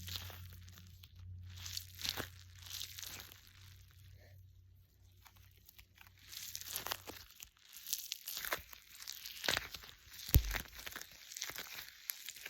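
A fidget toy being squeezed and rubbed, giving short crinkly, crunching rustles again and again. A low hum runs under it for the first seven seconds, and there is one sharp knock about ten seconds in.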